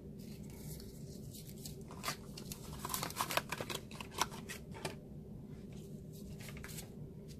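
Small clicks, taps and light rustling of craft supplies being handled on a tabletop, bunched together about two to five seconds in, over a low steady hum.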